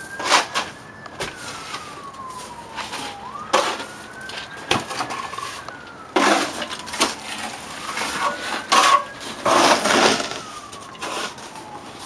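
A siren wails, its tone rising and falling slowly three times. Over it, a steel plastering trowel scrapes and slaps stiff fast-set stucco onto wire lath several times; these strokes are the loudest sounds.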